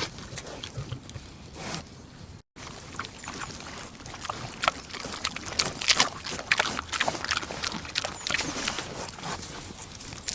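A pig eating, chewing and munching with quick, irregular crunching and smacking clicks. There is a brief cut to silence about two and a half seconds in.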